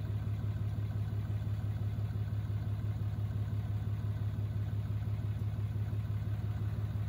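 Engine of a lifted Ram heavy-duty pickup idling steadily with an even low pulse.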